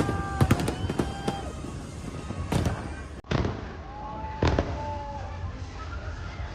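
Fireworks going off: a quick run of sharp bangs at the start, then scattered single bangs.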